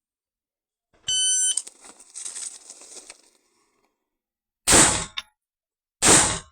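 Electronic shot timer gives its start beep, a half-second pitched tone, followed by two loud rifle shots from a carbine about a second and a half and three seconds later, the shots about 1.3 s apart.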